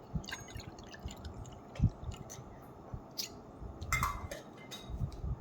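Scattered small clicks and knocks of a bowl and utensils being handled, with some wet squishing, as water is mixed for slime. One sharper knock comes about two seconds in.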